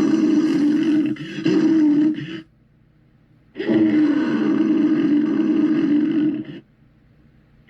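St. Bernard dog giving long, drawn-out growling roars. One carries on from before the start with a brief break, ending about two and a half seconds in; after a pause, a second one of about three seconds follows.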